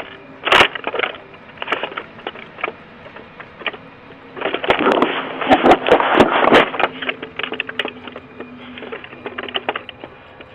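Rough knocks, scraping and clattering, heard through a video doorbell's microphone. A sharp knock comes about half a second in, and a louder burst of scraping and clattering with several sharp clicks follows between about four and a half and seven seconds in.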